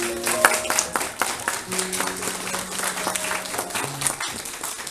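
Audience clapping, welcoming the performers, while instrumental music plays under it with held notes.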